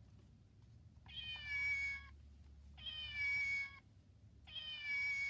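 A recorded cat meow played from a children's sound book's button three times, each meow about a second long with a slightly falling pitch, and all three identical.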